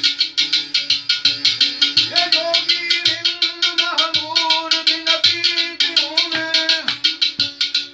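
Benju (bulbul tarang, a keyed banjo-zither) strummed in a fast, even rhythm of about five strokes a second. A man's singing voice comes in about two seconds in and holds long, bending notes over it until about seven seconds.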